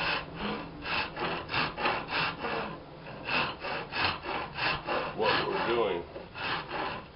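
Wood rasp scraping across hard, dried sycamore in quick back-and-forth strokes, about four a second, with a short pause about three seconds in.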